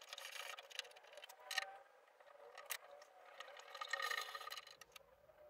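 Faint metallic scraping with a few sharp clicks from a hand tap and T-handle tap wrench being worked and handled on the steel lathe-bed frame, threading the rail mounting tabs.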